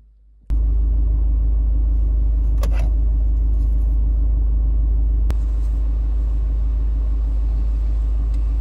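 Steady low rumble inside a car's cabin, starting suddenly about half a second in. A brief rustle comes a couple of seconds later, and a sharp click near the middle.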